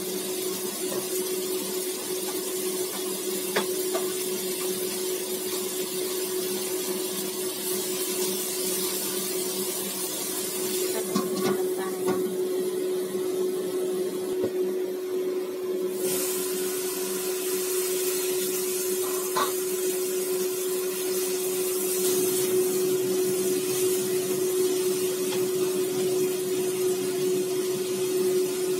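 Long beans and tofu sizzling in a hot wok: a steady hiss, with a steady hum beneath it and a few faint clicks. The hiss thins for a few seconds around the middle.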